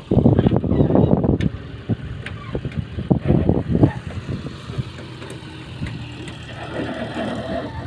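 Diesel tractor engine running steadily at a low pitch, with louder uneven noise over it in the first four seconds.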